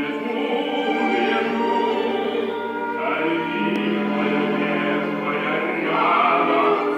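Music: a choir singing a Gypsy-style song with instrumental accompaniment, the voices holding long notes.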